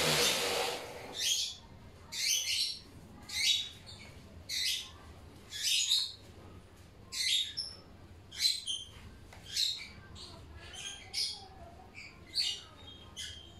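Random orbital sander switched off and winding down in the first second. Then a bird chirps in short, high calls about once a second.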